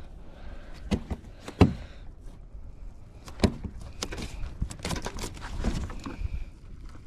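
Scattered knocks, clicks and rattles on a fishing kayak while a freshly caught striped bass is handled, several sharp knocks in the first half and a busier run of them in the second half.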